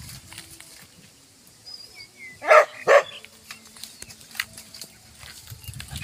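A dog barking twice, two short sharp barks a third of a second apart about two and a half seconds in, with light crackling of twigs and leaves around them.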